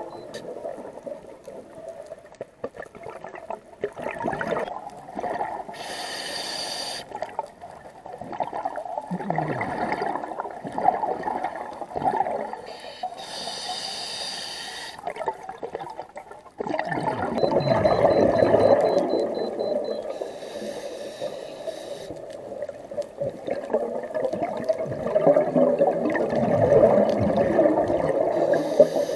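Scuba regulator breathing heard underwater: short hisses of inhalation through the demand valve, alternating with long, gurgling rushes of exhaled bubbles, in a slow repeating cycle.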